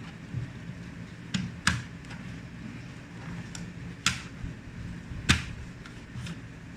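Sharp clicks and knocks of a laptop being handled during reassembly, four louder ones among fainter ticks, over a steady low hum.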